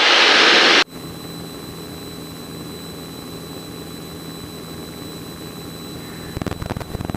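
Small propeller airplane's engine and cabin noise during a climb. A loud hiss cuts off suddenly about a second in, leaving a steady, quieter engine drone with a faint high whine, and a few clicks near the end.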